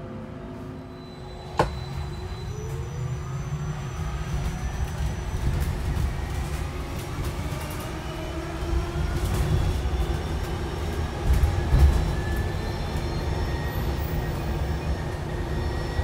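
Wrightbus StreetDeck Hydroliner hydrogen fuel-cell double-decker pulling away, heard from the upper deck. Its electric drive whines in several tones that rise steadily in pitch as the bus gathers speed, over a low road rumble that grows louder. A sharp click comes about a second and a half in.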